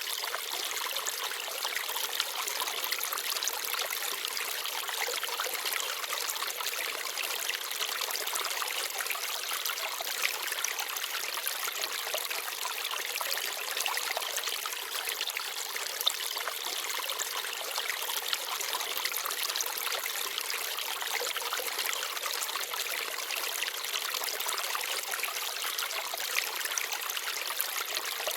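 Small forest stream babbling and trickling steadily over stones, with a few sharper splashes now and then.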